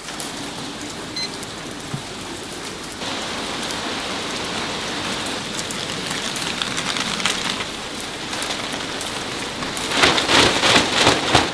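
Steady rain falling on wet pavement, a hiss that gets a little louder about three seconds in. Near the end comes a run of louder quick rustles and clicks as a clear plastic umbrella is handled.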